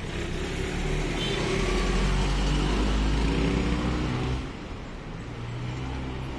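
A motor vehicle's engine running, its pitch shifting a little. It is loudest for the first four seconds or so, then drops off sharply, and a quieter engine hum carries on.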